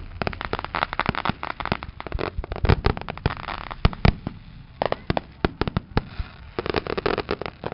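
Aerial fireworks going off in quick succession: a dense run of sharp bangs and pops, several a second, with stretches of crackling from crackle-effect shells.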